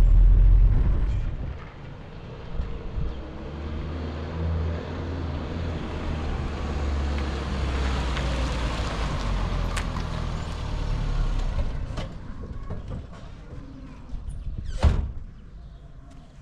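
Peugeot sedan's engine running as the car drives up close and pulls in, its hiss strongest in the middle, with a sharp knock near the end.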